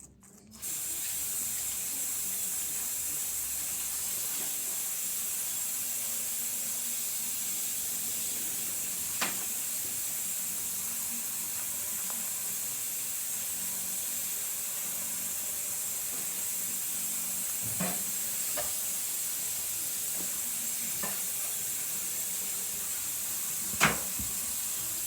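Steady sizzle of food frying in a pan, with a few short sharp knocks, the loudest near the end.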